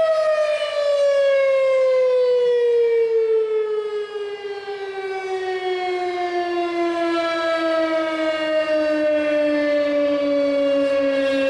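RSH-10 Thunderbeam outdoor warning siren sounding, its held tone sliding steadily down in pitch. The level dips briefly about four seconds in, then comes back up.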